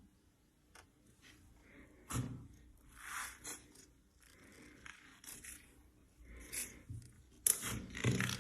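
A series of short, crisp scraping and cutting strokes, about half a dozen, with a sharp knock about two seconds in and the loudest strokes near the end.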